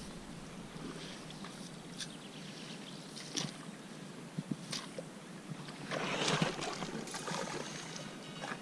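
Shallow water sloshing and splashing around a landing net and a fish thrashing at the surface, with small clicks and drips, and one louder splash about six seconds in.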